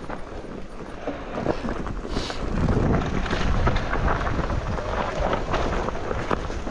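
Wind buffeting the microphone over the rumble and rattle of a mountain bike descending a dry, rocky trail: tyres running over loose dirt and stones, with scattered small knocks from the bike. It gets louder about two and a half seconds in.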